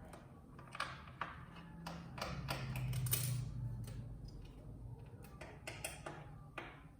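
Small screwdriver backing screws out of a TV's metal chassis and circuit board: irregular clicks and scrapes of the tool and screws on metal, with a low hum for the first few seconds.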